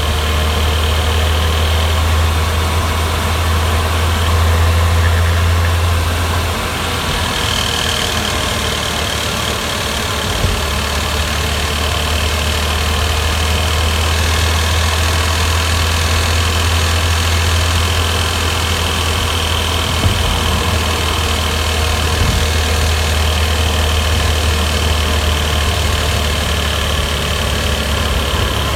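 Porsche Boxster S (986) 3.2-litre flat-six engine running while driving. From about seven seconds in there is a rattle on overrun, as the car engine-brakes off the throttle; it comes from the right-hand side and stops at the slightest touch of the throttle. The owner rules out the hydraulic lifters as its cause.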